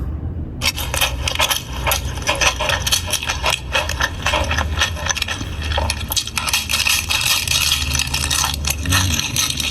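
Close-miked crunchy chewing: a person biting and chewing crisp food in a mukbang, giving dense crackling clicks that start about half a second in, over a steady low hum.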